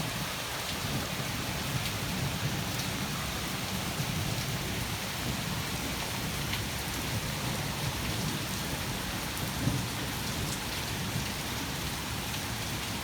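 Heavy thunderstorm rain pouring steadily, with a low rumble of thunder underneath.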